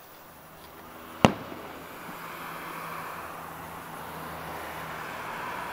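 A firework shell bursting with one sharp bang about a second in, followed by a hiss that slowly grows louder.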